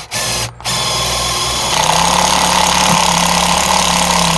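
Power drill driving a screw: a short spurt, then steady running that rises in speed about a second and a half in.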